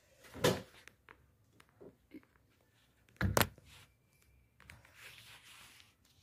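Handling noises from taking apart an air-conditioner indoor unit's sensor assembly: a soft bump about half a second in, a sharp knock a little past three seconds, a few light clicks, and a soft rustle of rubbing near the end.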